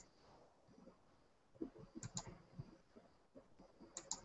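Near silence broken by faint clicking at a computer. There are pairs of sharp clicks about two seconds in and again near the end, with soft low knocks between them.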